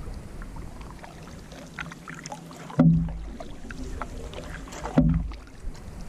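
Canoe being paddled on calm water: water swishing and dripping off the paddle blades and along the hull, with two sudden dull thumps through the canoe, a little over two seconds apart, in time with the paddle strokes.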